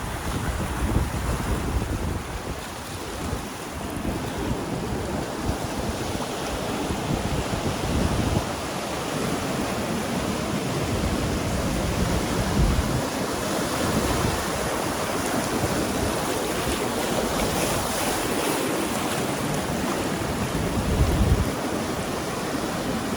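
Ocean waves washing and surging over volcanic shore rocks, a continuous wash of surf, with gusts of wind buffeting the microphone as low rumbles that come and go.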